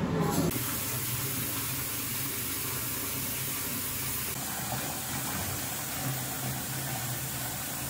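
Bath tap pouring a steady stream into a partly filled bathtub: water running and splashing.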